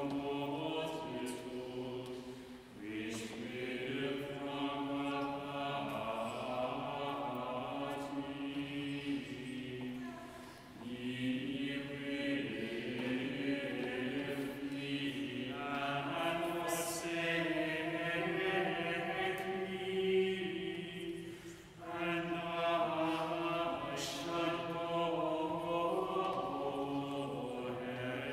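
Plainsong chant in Mode VIII, sung in long, slow phrases with short breaks for breath about 3, 11 and 22 seconds in.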